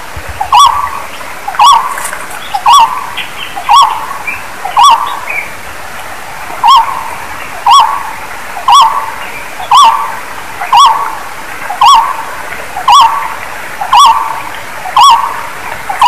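A barbet calling: a single short note, rising and falling, repeated steadily about once a second.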